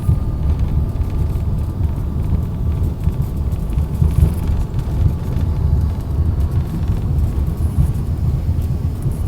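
Steady low rumble inside an airliner cabin just after landing, with faint steady tones above it: the airliner's engines and wheels on the runway or taxiway.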